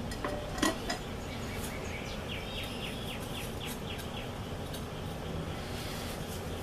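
A bird calling a quick run of about eight short, falling chirps about two seconds in, over a steady low rushing noise. Just before, there is a sharp metallic clink with a short ring.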